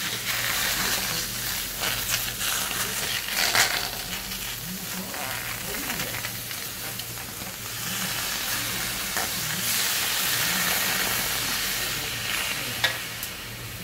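Food sizzling and hissing in a hot brass pan as live small octopus and vegetables cook, with scattered clicks of metal tongs and a ladle against the pan and one sharp click near the end.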